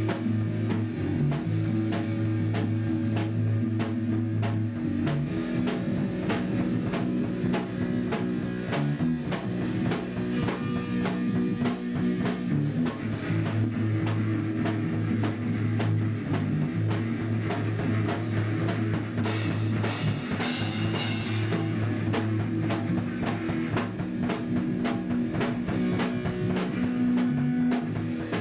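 Rock music with a drum kit and guitar: drums keep a steady beat of about two hits a second over sustained low bass notes, with a brief brighter wash of noise about two-thirds of the way through.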